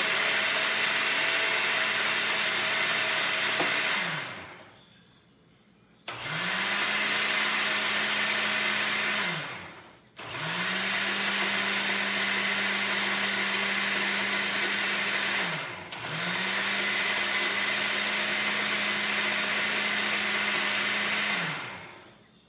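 Countertop blender motor run in four bursts of a few seconds each, spinning up at the start of each and winding down at the end, with short pauses between them. It is blending coconut, coriander, tamarind and a little water into a chutney paste.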